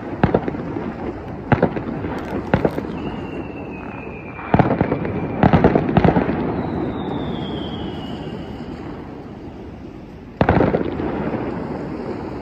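Fireworks salute going off: a series of sharp, echoing bangs, loudest in a quick cluster about four to six seconds in and in one big bang about ten seconds in. Two long whistles, each falling slightly in pitch, sound between the bangs.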